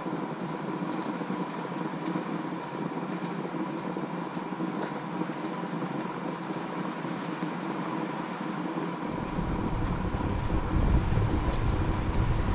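Steady outdoor hiss with a faint hum. About nine seconds in, wind rumble on the microphone comes in and grows louder.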